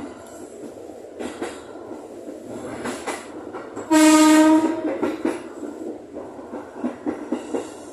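JR 205 series electric commuter train running, heard from the driver's cab, with scattered clicks from the rails. About four seconds in its horn sounds once, a loud steady blast of under a second.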